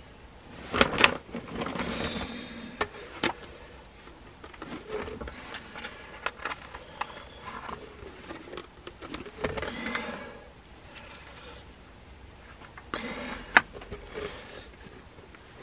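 Wooden rodent snap traps being handled and re-baited on gravel: sharp clicks and knocks, the loudest a pair about a second in and another near the end, with scraping and rustling between.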